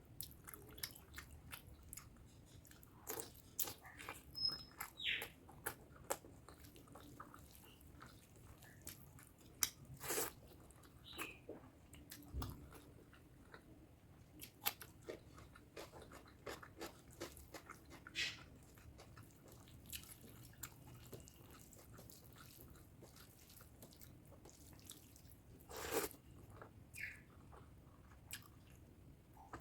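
Close-miked chewing and wet mouth sounds of someone eating spicy pork curry with rice: irregular soft smacks and clicks, a few louder ones about ten seconds in and again near twenty-six seconds.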